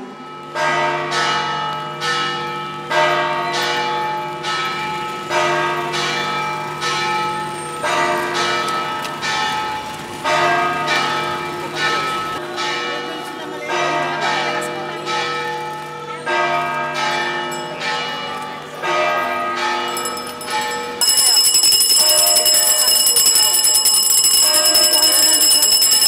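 Church bells pealing, struck over and over with ringing tones at several pitches. About 21 seconds in, the sound switches abruptly to a handbell shaken rapidly and loudly close by.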